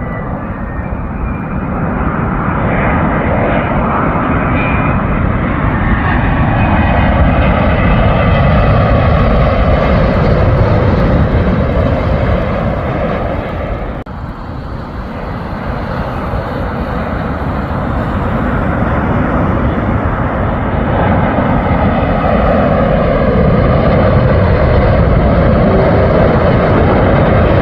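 Two jet airliners passing low on landing approach, one after the other: a loud jet roar whose whine falls in pitch as each goes by. The first dips away about halfway through, and the second then builds.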